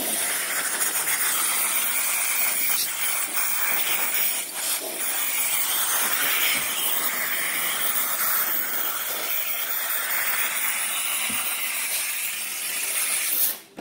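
A steady high-pitched hiss that cuts off suddenly near the end.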